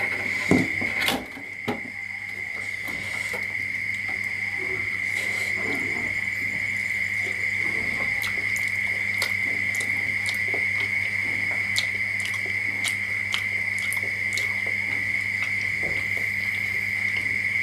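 Food being handled over a metal tray and a ceramic bowl: scattered small clicks and a few louder knocks in the first two seconds. Under it runs a steady high-pitched whine with a low hum.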